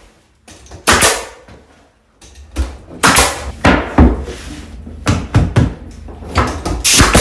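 Pneumatic nailer firing nails through wooden furring strips into the wall studs: an irregular string of sharp shots, roughly a second apart.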